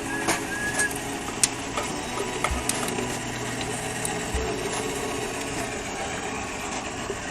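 Seamless gutter-forming machine running steadily, its motor driving the rollers as the gutter is formed, with a few light clicks and rattles.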